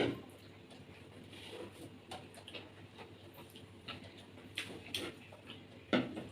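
Quiet table-eating sounds: scattered soft clicks and taps of food, fingers and dishes, with a sharp click at the very start and another near the end.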